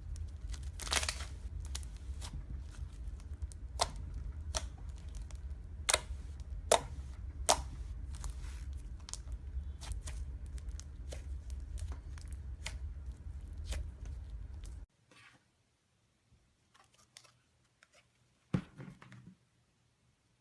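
Slime being squeezed and poked by hand, giving a run of sharp sticky clicks and pops over a steady low hum. About fifteen seconds in, the hum stops short, and only a few faint clicks and one louder pop follow near the end.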